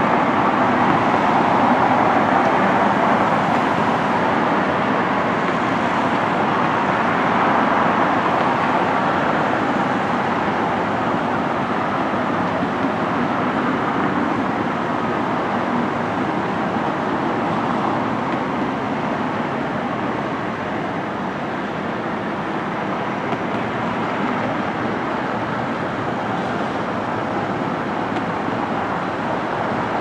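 Steady drone of distant diesel engines and heavy machinery, an even mechanical noise with no distinct knocks or bangs.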